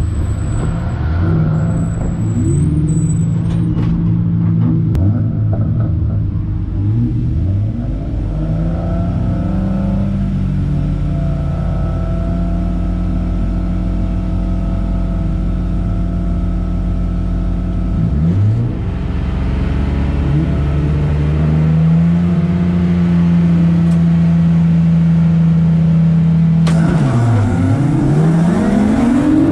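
Cabin sound of a Spec3 BMW E36 race car's straight-six engine. It runs at low revs with short rises and falls of throttle for the first ten seconds, then holds a steady note. Near the end the revs drop sharply and climb again as the car pulls away, and road and wind noise rise with it.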